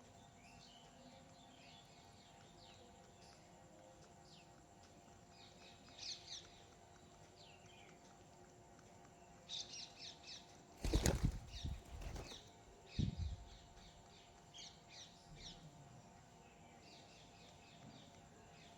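Small birds chirping in quick short calls, with a loud flurry of wingbeats about halfway through as birds take off.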